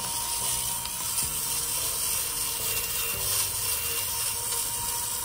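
Electric lint remover (fabric shaver) running steadily on its third, highest speed setting, its spinning blades shaving pills off the ribbed hem of a knit cardigan: an even motor hum with a thin steady tone and a rasping hiss of cut fuzz.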